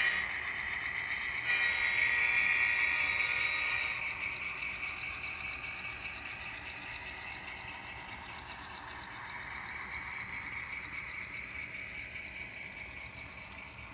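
ESU sound decoder in an Atlas GP38-2 model locomotive playing its diesel engine sound through the model's speaker. A horn blast sounds from about one and a half to four seconds in. The sound then fades gradually as the model runs on.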